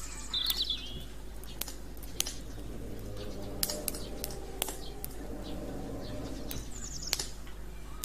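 Wood campfire crackling with scattered sharp pops, with small birds chirping: one short call about half a second in and another near the end.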